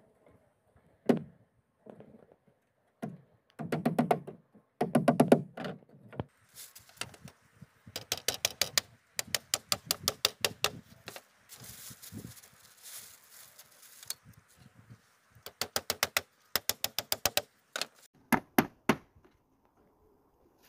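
Thuds and knocks, then runs of quick, sharp taps at several a second, with a stretch of scraping noise in the middle.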